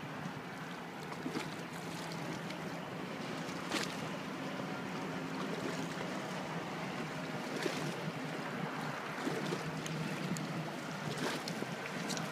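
Steady wind and river-water noise on a phone microphone, with a low steady hum underneath and a few brief sharp sounds about four, eight and eleven seconds in.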